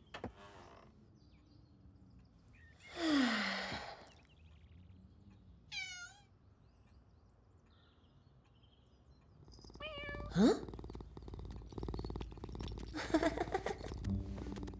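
Cartoon house cat meowing with a falling pitch, then purring steadily from about two-thirds of the way in, with more meows over the purr.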